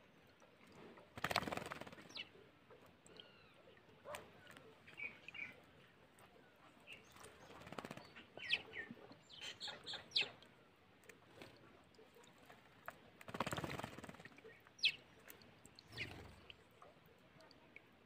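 A sparrow bathing in a shallow tub of water: two bursts of wing-flapping and splashing, about a second in and again about thirteen seconds in, with short high chirps scattered between them.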